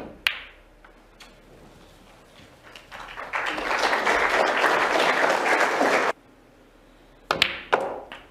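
Audience applauding for about three seconds in the middle, cutting off suddenly. Sharp clicks of snooker balls come at the start and again twice near the end.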